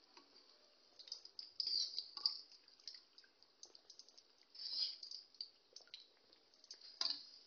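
Kachoris deep-frying in hot oil: irregular sizzling and crackling, with louder bursts of crackle a couple of seconds in, around the middle and near the end as they are moved and lifted out with a slotted spoon.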